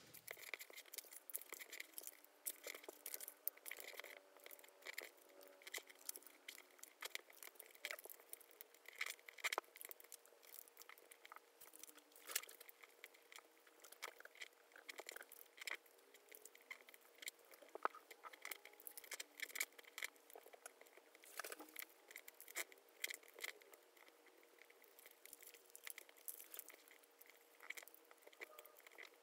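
Faint, rapid rustling, crinkling and ticking of origami paper being folded and creased by hand, sped up by the time-lapse.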